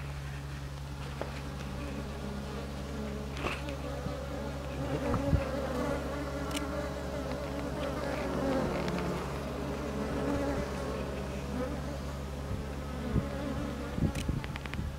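Japanese honeybees buzzing in and under a wooden box hive: a dense, continuous hum of many wings, wavering in pitch as bees fly close. A few light knocks are heard, around the middle and near the end.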